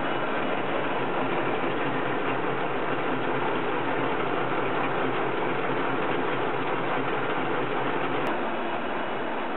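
STANKO 5350 spline shaft milling machine running, with a steady mechanical whirr and rattle of its gears and drive. There is a brief click about eight seconds in, after which the noise is slightly quieter.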